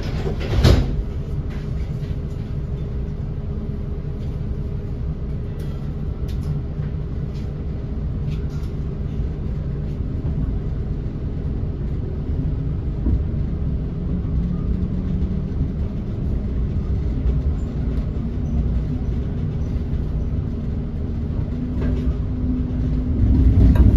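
TriMet MAX light-rail train running, heard from inside the car: a steady low rumble of wheels and running gear. There is a single knock about a second in, and a motor tone comes in near the end as the sound grows louder.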